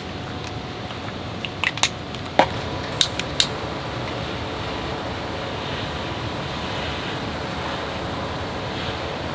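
Heavy rain falling steadily on a tent shelter's fabric. About two to three seconds in, a quick run of sharp clicks and snaps comes from a mosquito coil being handled and pulled apart.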